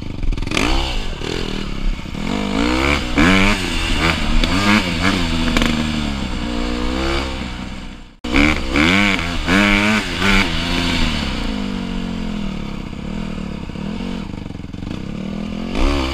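Honda CRF150 dirt bike's single-cylinder four-stroke engine revving up and down repeatedly as it is ridden hard through the gears, the pitch rising and falling again and again. The sound cuts out abruptly for a moment about halfway through, then the riding resumes.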